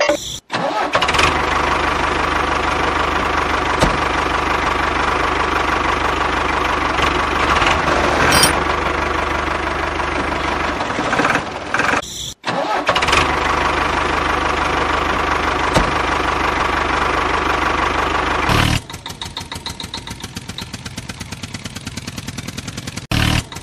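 Tractor engine sound for a toy tractor: a loud, steady engine drone that breaks off for a moment about halfway and then resumes. It drops to a quieter, even pulsing of about five beats a second for the last few seconds.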